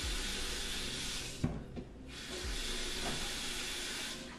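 Kitchen tap running hard into the sink as potatoes are rinsed under it. The water stops for a moment about a second and a half in, with a knock, then runs again and stops near the end.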